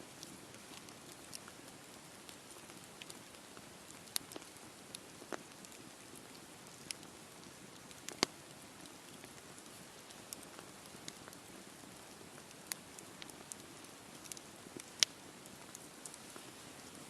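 Wood campfire crackling: a steady low hiss with scattered sharp pops, two of them louder, about eight seconds in and near the end.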